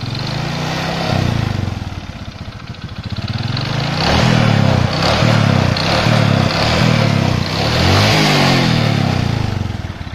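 Small motorcycle engine being revved in repeated throttle blips, its pitch rising and falling several times, with a knocking from the cylinder area. The mechanic judges from this sound that the piston and connecting rod are worn.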